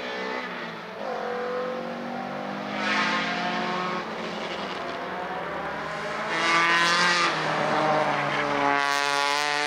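Opel Kadett GSi race car's four-cylinder engine under hard acceleration, its pitch climbing through the gears and dropping back at each upshift. It gets louder in the second half as the car passes close.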